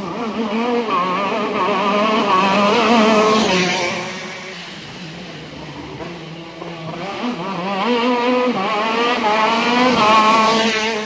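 Racing kart engine climbing a winding road, its pitch rising and falling with the throttle through the bends. It is loud about three seconds in, fades briefly, then grows again as the kart comes round the bend close by near the end.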